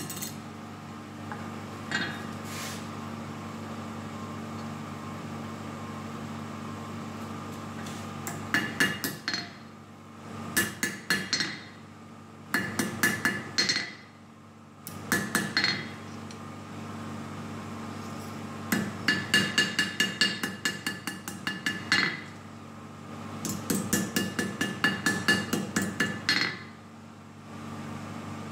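Hand hammer striking a hot steel knife blank on an anvil in runs of quick, evenly spaced blows, each blow ringing, with pauses between the runs. The longest run lasts about three seconds. A steady low hum continues underneath throughout.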